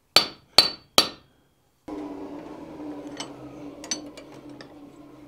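Three quick hammer blows on a red-hot forged key bit lying on a steel swage block on the anvil, each with a short metallic ring, as the smith works to straighten the bit. From about two seconds in, a steady low hum with a few light clicks takes over.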